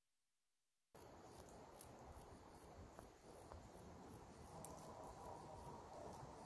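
Faint outdoor ambience that starts about a second in: insects, likely crickets, chirping in short high-pitched pulses about three times a second over a low rumble.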